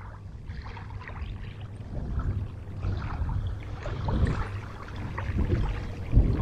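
Low wind rumble on the microphone, with scattered small knocks and rustles and one louder knock near the end.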